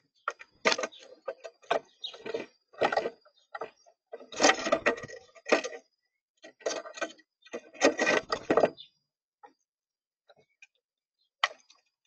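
Irregular clusters of sharp clicks and taps at a bird feeder: birds pecking at seed and scrabbling on the feeder, with short pauses between flurries.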